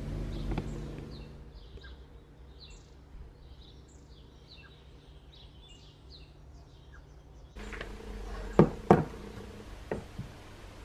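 Faint, rapid chirping of small birds over a low steady hum. The sound changes abruptly about two-thirds of the way in, followed by two sharp knocks in quick succession and a lighter knock about a second later.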